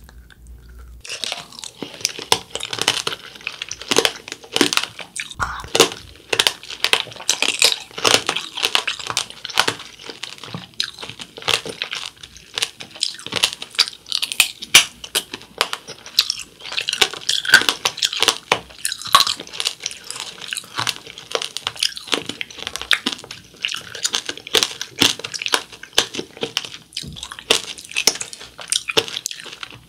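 Biting and chewing tangerine tanghulu: the hard sugar-candy shell on whole tangerines crunches and cracks in a dense run of sharp crackles, mixed with chewing, starting about a second in.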